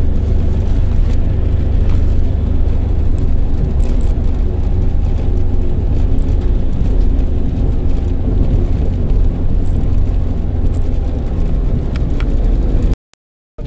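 Steady low rumble of engine and road noise heard from inside a moving vehicle's cab at highway speed. The sound cuts out completely for a moment near the end.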